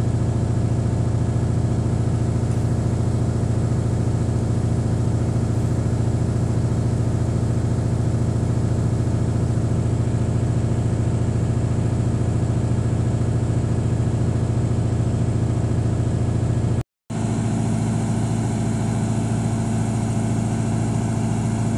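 Hitachi excavator's diesel engine idling steadily, a deep even drone, with a brief dropout about three-quarters of the way through.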